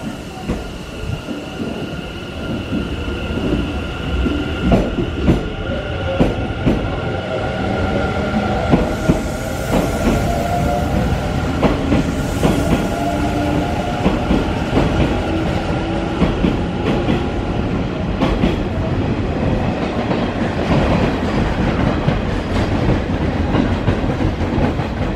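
Hanshin electric train pulling out and passing close by, its motors' whine rising in pitch as it gathers speed. Its wheels clack over rail joints as the cars go past, and the sound grows louder through the passage.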